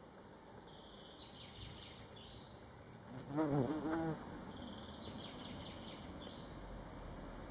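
A bumblebee buzzing with its wings, loudest for about a second near the middle with a wavering pitch, then fainter.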